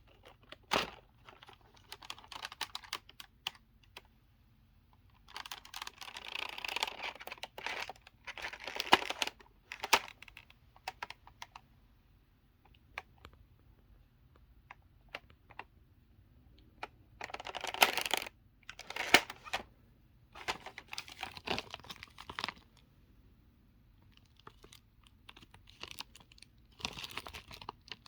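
Hard clear plastic keycaps clicking and clattering against one another and their packaging, in several spells of handling a second or two long with quiet gaps between.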